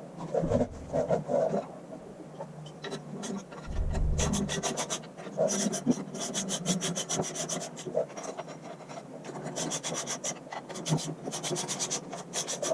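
Ratchet wrench running in small bolts on the power take-off's rear plate: fast runs of clicks from the ratchet, with metal scraping and rubbing in between.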